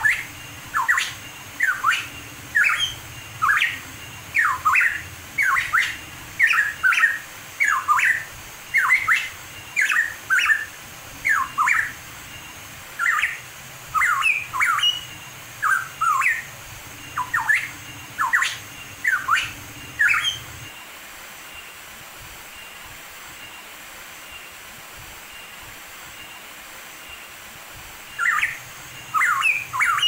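Hooded pitohui singing: a quick series of short, loud whistled notes, many sweeping down in pitch, one or two a second. The song breaks off about two-thirds of the way through and starts again near the end, over a steady hiss.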